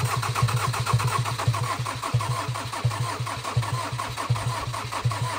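Starter motor cranking the rebuilt four-cylinder diesel in a Ford Transit Mk8, an even, rapid rhythm of compression pulses. The engine turns over without firing: the rail pressure sensor is unplugged so the cranking only primes the oil.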